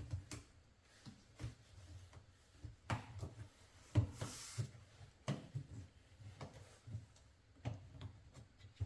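Scattered knocks and clicks, with a brief rubbing hiss about four seconds in, from the rubber door seal of a Miele washing machine being pushed and worked onto the metal front panel by hand.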